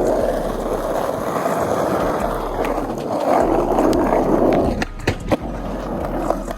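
Skateboard wheels rolling steadily over the ground, then a few sharp clacks of the board about five seconds in as the rolling gets quieter.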